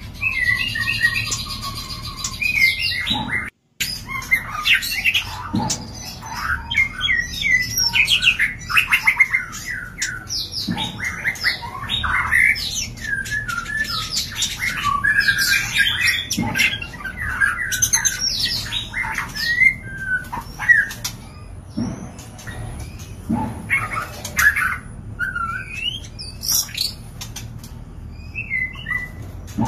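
White-rumped shama in a breeding cage singing and calling in a dense, varied run of chirps, whistles and harsher notes, the sounds of a shama in mating condition. A split-second break cuts in about three and a half seconds in.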